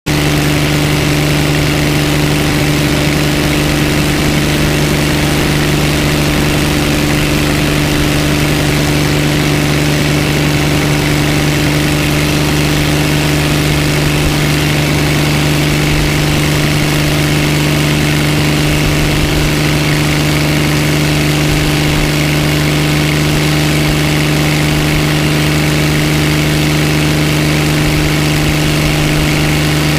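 Hiller helicopter's engine and main rotor running steadily, heard close beside the engine bay as a loud, even hum that does not change in pitch.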